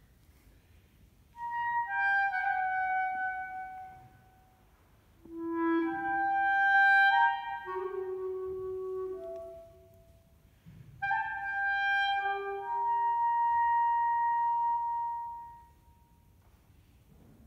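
Solo clarinet playing three slow phrases of contemporary concert music, each ending on a held note and separated by short pauses; the last phrase closes on a long sustained tone.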